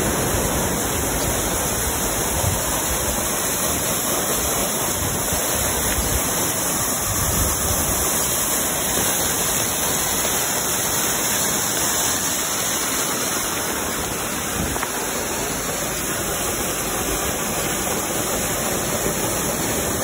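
Waterfall pouring down a sea cliff onto a beach: a steady rushing of water.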